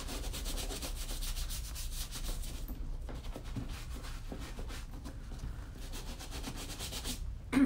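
Small bristle brush scrubbing a leather handbag with cleaner in quick back-and-forth strokes, fast at first, then lighter and slower after about three seconds. A brief louder bump comes at the very end.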